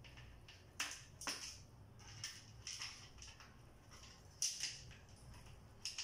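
An African grey parrot's beak and claws scraping and gripping on the edge of a wooden door as it clambers down. About seven short scratchy scrapes come at irregular intervals.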